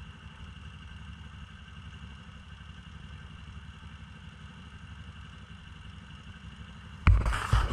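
An off-road ATV engine idling steadily with a low, even rumble. About seven seconds in, a sudden loud burst of noise cuts in.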